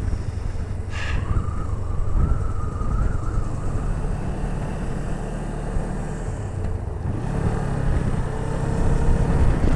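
Motorcycle running on the road, a steady low rumble, with a faint wavering whine for a few seconds from about a second in.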